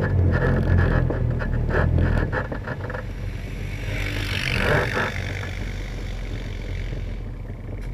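ATV engine running close by, loud with a dense rattle for about the first three seconds, then dropping to a quieter, steady low running. A hiss rises and fades around the middle.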